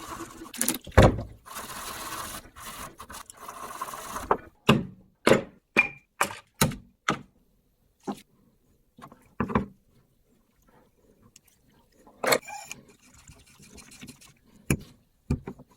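Hand work on a bicycle crankset: a rough scraping noise for about four seconds, then a run of six sharp metallic knocks about twice a second, followed by a few scattered knocks.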